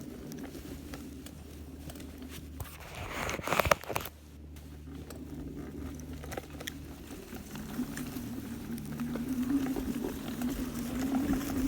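Hoverboard kart's electric hub motors humming steadily while it drives over rough ground, with scattered small clicks and knocks. There is a loud rustle about three and a half seconds in, and the hum swells toward the end.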